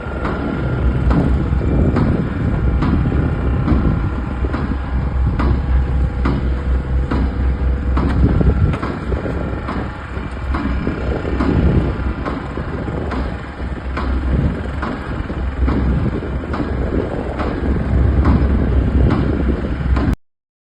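Heavy excavator running with a hydraulic attachment at work: a deep, steady engine rumble with sharp metallic knocks about once a second.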